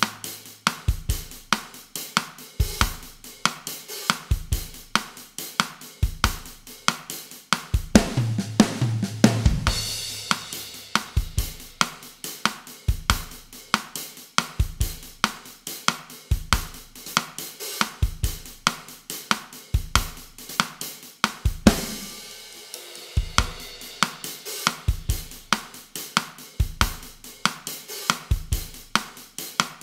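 Drum kit playing a bossa nova groove at 140 bpm: steady kick, hi-hat and cross-stick pattern. A louder fill with a cymbal crash comes about eight seconds in, and a cymbal wash with the bass drum briefly dropping out around twenty-two seconds.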